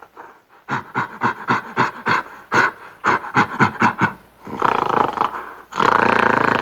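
An animal making a quick run of short, rhythmic huffs, about four or five a second, followed by two longer rough calls, the second louder.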